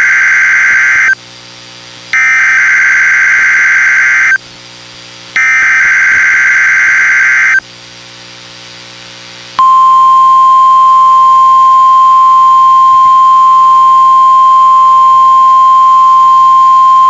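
NOAA Weather Radio emergency alert signal. It starts with the digital SAME header: three warbling data-tone bursts, each about two seconds long with a second's pause between, the first already under way. About two seconds after the last burst comes the steady 1050 Hz warning alarm tone, which sets off weather radio receivers and here marks a routine weekly test.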